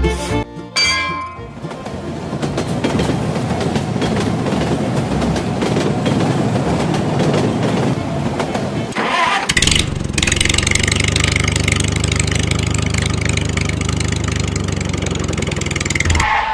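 Toy train running along plastic track with a rattling whir. About nine seconds in, a steady engine-like drone takes over.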